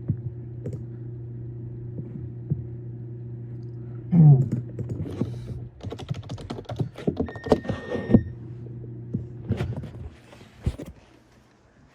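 Clicking of a computer keyboard and mouse over a steady low electrical hum, with a short loud sound about four seconds in and a brief high beep near eight seconds. The hum cuts off near the end.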